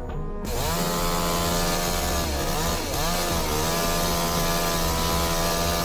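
Chainsaw engine running at high revs. About two seconds in its pitch dips briefly three times and recovers. Background music cuts off at the start.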